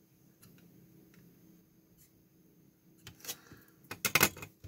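Soldering iron and solder being set down at a workbench after soldering: a near-quiet stretch with faint room hum, then a cluster of sharp clicks and clacks about three to four and a half seconds in.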